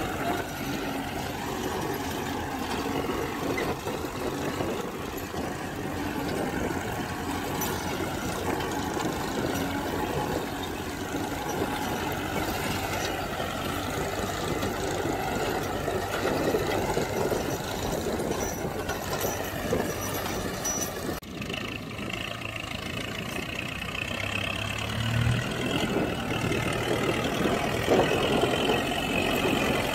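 Kubota MU4501 tractor's four-cylinder diesel engine running steadily under load as it pulls a tined cultivator through dry soil. The sound dips briefly about two-thirds of the way through, then carries on.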